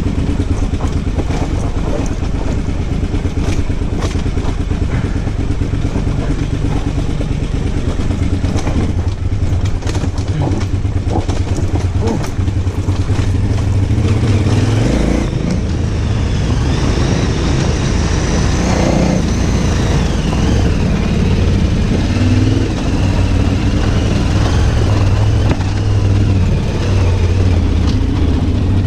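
990 motorcycle's engine running while it is ridden, with sharp clicks and knocks through the first half. About halfway the engine note shifts, then rises and falls.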